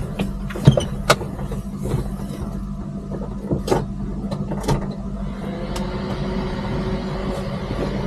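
A steady low mechanical hum runs under a handful of sharp knocks and rustles from someone moving about inside a truck cab and lying down in the sleeper berth. A second, higher hum joins about halfway through.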